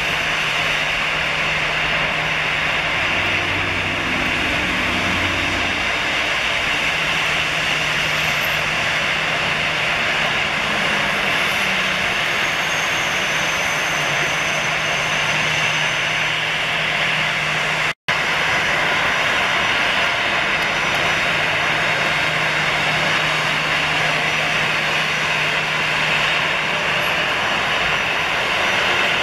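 Jet airliner engines at low taxi power, first an Embraer E190 and then an Airbus A320, making a steady whine over a low hum. The sound breaks off for a split second about two-thirds of the way through.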